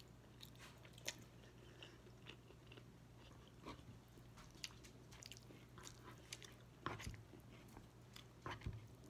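Faint close-up chewing and mouth sounds of someone eating a rice-and-noodle bowl, with scattered small clicks of a fork in the bowl and a couple of louder knocks near the end. A faint steady low hum runs underneath.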